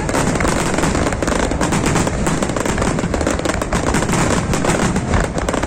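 Fireworks display: a dense, unbroken crackle of many small bursts popping close together.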